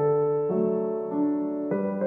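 Gentle solo piano background music, with a new chord struck about every half second.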